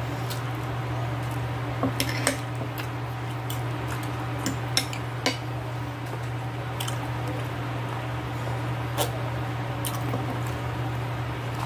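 Metal fork and knife clinking and scraping on a ceramic plate, with a handful of sharp clinks, the loudest about two and five seconds in, alongside soft chewing. A steady low hum runs underneath.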